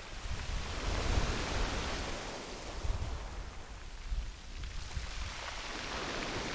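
Sea waves breaking and washing over a pebble beach, the surf swelling and ebbing, with a lull about four seconds in.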